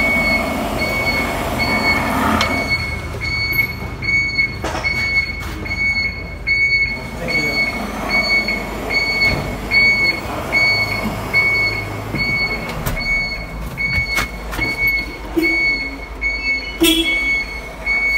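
A tractor's electronic beeper sounding a steady, evenly repeated single-pitch beep, about three beeps every two seconds, with a few sharp knocks.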